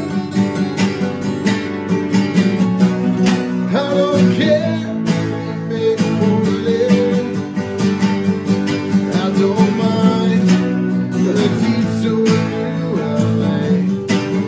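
Two steel-string acoustic guitars played together in a country-style instrumental passage: steady strummed chords with single notes picked over them, including a few bent notes.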